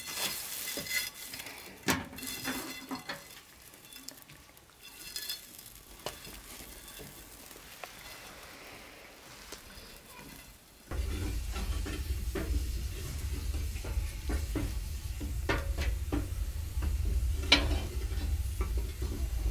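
Cooking sounds: utensils clicking and clinking and food sizzling. A little past halfway a steady low rumble suddenly comes in and runs on under further clinks.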